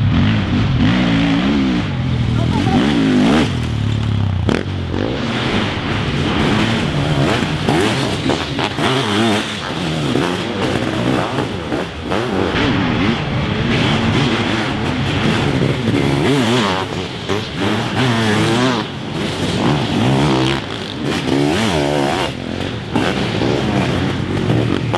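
Motorcycle engines of several sidecarcross outfits racing at once, overlapping and revving, their pitch repeatedly rising and falling.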